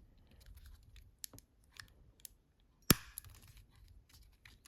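Plastic phone housing parts being handled, with scattered light clicks and scraping and one sharp snap nearly three seconds in as the Siemens C62's antenna cover clicks into place.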